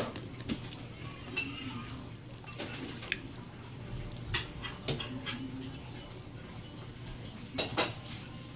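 Dishes and cutlery clinking now and then in sharp, scattered clicks, the loudest about halfway through and a quick pair near the end, over a low steady hum.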